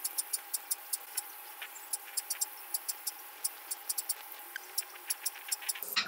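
Ultrasonic dental scaler working along a dog's tartar-crusted teeth: a steady hum over a spray-like hiss, with irregular quick ticks, several a second, as the tip chatters against the teeth and tartar. It cuts off abruptly just before the end.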